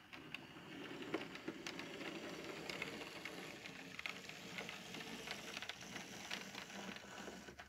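OO gauge model locomotive running along the track: a steady mechanical whirr with many small, irregular clicks from the wheels on the rails.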